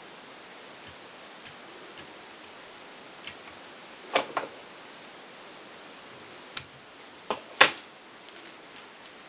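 Irregular light clicks and taps from hands working at a fly-tying vise, with a steady faint hiss underneath. The few loudest clicks come in the second half.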